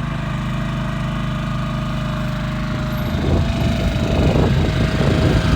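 Small Honda gasoline engine running steadily, driving the chute's hydraulic pump. About three seconds in the sound turns rougher and a little louder.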